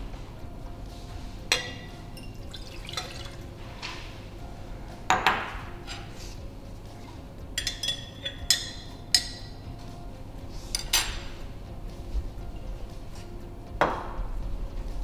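Laboratory glassware being handled at a bench: liquid poured into glass beakers, with several sharp glass clinks that ring briefly, over a low steady hum.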